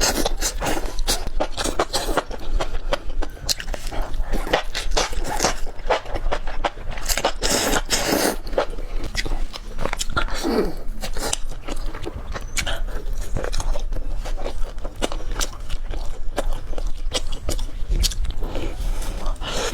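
A person biting and chewing food close to the microphone, with a dense run of short crackling, smacking clicks.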